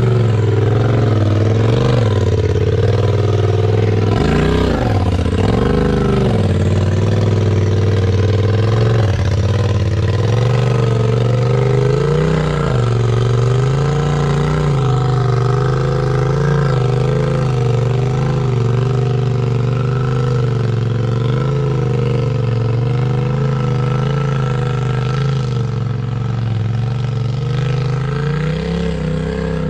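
Polaris RZR side-by-side engine running at low revs while rock crawling, its pitch rising and falling with the throttle, with a larger rev about four seconds in.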